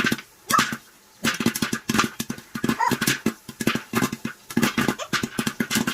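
Popcorn kernels popping in an electric popcorn maker: a rapid, irregular run of sharp pops, several a second. Two short, high squeaks are heard, one about half a second in and one about three seconds in.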